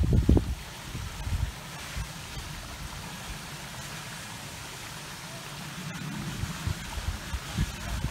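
Steady outdoor hiss, with low rumbling gusts of wind on the microphone at the start and again near the end.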